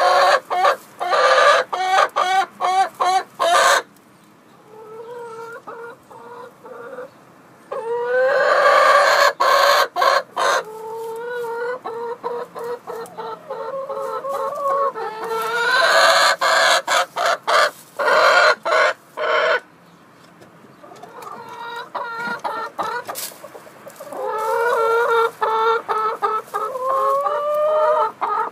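Domestic hens clucking close by in quick runs, broken by long drawn-out calls that rise slightly in pitch. There is a quieter spell about four seconds in.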